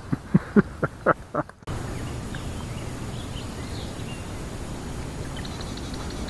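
A quick run of about six short, sharp sounds, roughly four a second, then an abrupt change to steady outdoor ambience with faint chirps of small birds.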